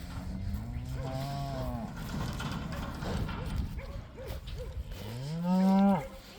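Cattle mooing: a long low moo in the first two seconds, then a louder moo about five seconds in that rises in pitch.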